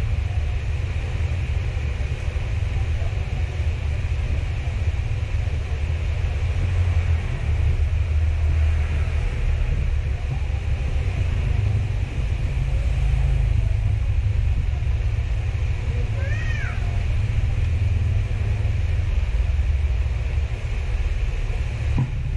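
Steady low background rumble with a hiss over it. About sixteen seconds in comes a short cry that rises and falls in pitch, and a single click near the end.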